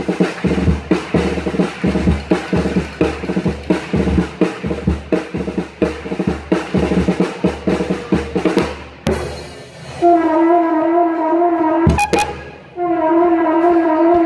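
Band music: a drum kit keeps a fast, steady beat for the first nine seconds or so. Then the drums drop out, and about ten seconds in a trumpet holds two long notes with a slight vibrato, with a short break and a drum hit between them.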